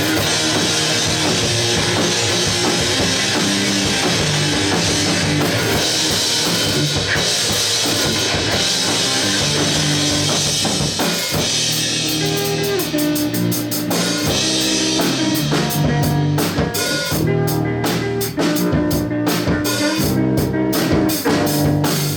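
Live rock band playing an instrumental break with drum kit, electric guitar and bass, and no vocals. About halfway through, the band switches to a choppier, stop-start rhythm of sharp, regular hits.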